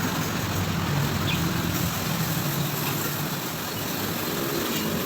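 Steady background rumble and hiss with a low hum, with faint distant voices near the end.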